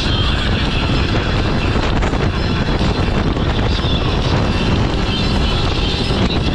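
ATV engine running steadily, with wind noise on the microphone.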